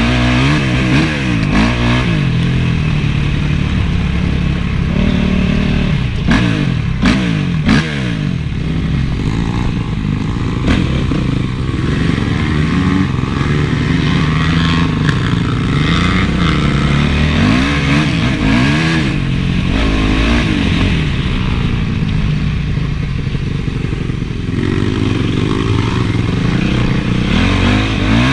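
Honda CRF450's single-cylinder four-stroke engine revving up and falling back again and again as the motocross bike is ridden, with a few sharp knocks about a quarter of the way in.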